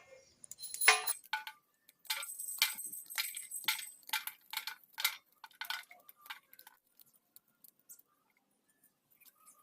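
A run of light metallic or glassy clinks and jingles, a couple a second, with a high ringing that hangs on for a second or two early in the run; the clinks thin out and stop about seven seconds in.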